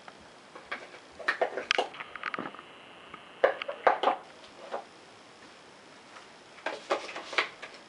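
Handling of the iPad mini's cardboard box and charger parts: scattered light taps and clicks in a few short clusters as small plastic pieces are set into the box tray and the box is moved.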